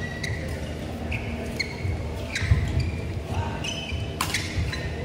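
Badminton rally: court shoes squeaking in short chirps on the court floor, with thudding footsteps and one sharp racket-on-shuttlecock hit about four seconds in.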